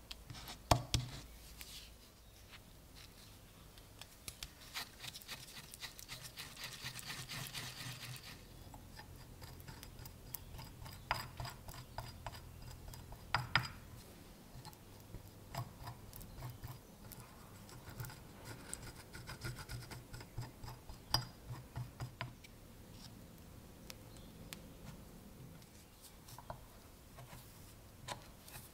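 Small bench handling sounds: a scattered run of light clicks, taps and scraping as two-part epoxy is mixed and spread on a knife tang and wooden handle scales are pressed down over brass pins. The scraping is thickest a few seconds in.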